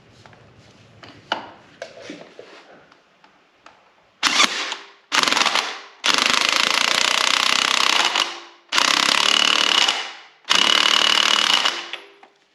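Power impact wrench hammering the Ford 5.0L crankshaft damper bolt home with a 24 mm socket, in five bursts, two short then three longer, after a few seconds of light clicks as the tool and socket are handled.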